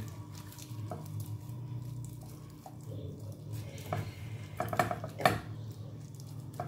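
Light clicks and knocks of a pan and its food being handled as lemon slices are pressed into the fish, over a low steady hum. A cluster of sharper clinks comes about four to five seconds in.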